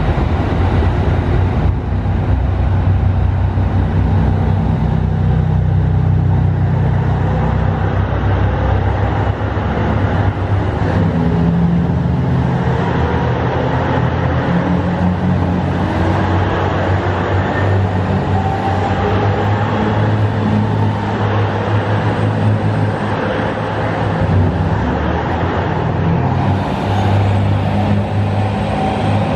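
JR Shikoku 2700 series diesel multiple unit pulling out of a station: its diesel engines run hard under load as the train gathers speed. A whine rises slowly in pitch through the middle of the departure.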